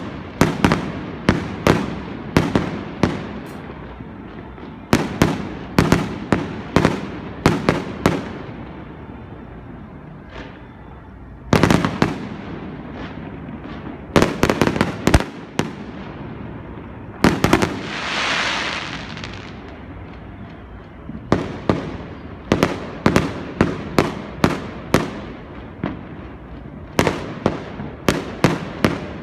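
Aerial fireworks display: sharp, echoing bangs of bursting shells, coming in quick volleys of several bangs with short lulls between. There is a hiss lasting about a second and a half near the middle.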